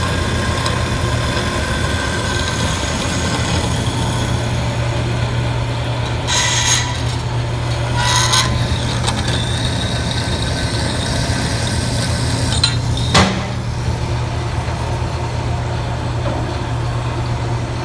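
Grob 36-inch vertical bandsaw running steadily with a low hum while its blade cuts through stock, with two brief rasping bursts about six and eight seconds in and a sharp knock about thirteen seconds in.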